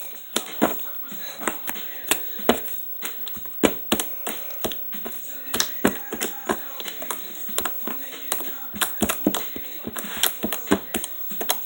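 Sticky soap-and-lotion slime being worked by hand, giving a string of sharp, irregular clicks and pops, several a second.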